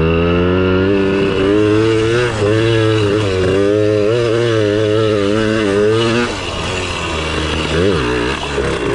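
1982 Kawasaki KDX80's small two-stroke single-cylinder engine running with the throttle worked up and down, its pitch wavering. About six seconds in it drops back quieter, then gives a short rev near the end.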